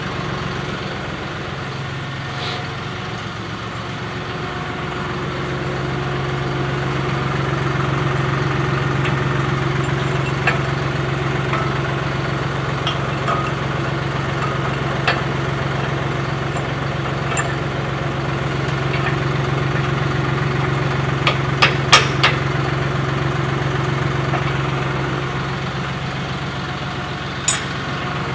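John Deere 5075E tractor's three-cylinder diesel engine idling steadily, growing a little louder several seconds in. A quick cluster of sharp clicks comes about three-quarters of the way through, and one more near the end.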